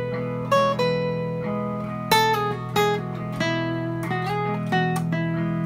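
Acoustic guitar playing a melodic single-note solo over a looped bed of sustained guitar chords. Plucked notes start about every half second and ring out over the steady chord underneath.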